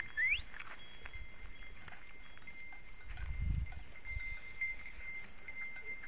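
Outdoor ambience of a sheep and goat flock grazing in scrub. Faint high steady ringing tones come and go throughout, a short rising whistle sounds just after the start, and a low rumble comes in the middle.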